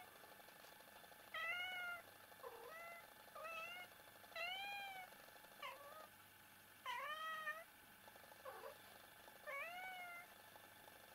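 A domestic cat meowing repeatedly, about one call a second, most calls rising and then falling in pitch.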